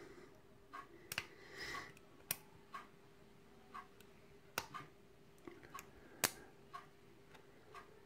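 A hook pick and tension wrench in a pin-tumbler euro-profile cylinder lock, making scattered light metallic clicks at irregular intervals as the pins are probed and set. Two of the clicks, about four and a half and six seconds in, are louder than the rest.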